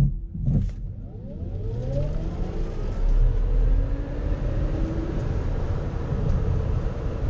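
Cabin sound of a Tesla Model S P100D's dual electric motors during a full-power launch-mode run: a motor whine rises steeply in pitch about a second in, keeps climbing over the next few seconds, and rises over growing tyre and wind noise. Near the end the whine drops away as the car lifts off and slows under regenerative braking, leaving a steady road noise.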